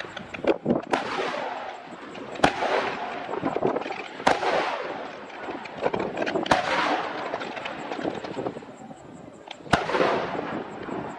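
Aerial fireworks bursting: five sharp bangs about two seconds apart, each followed by a long fading crackle of glittering stars, over a steady background of crackling.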